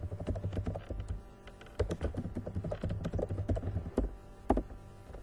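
Typing on a computer keyboard: quick runs of key clicks with a short pause about a second in, then a few single, louder keystrokes near the end.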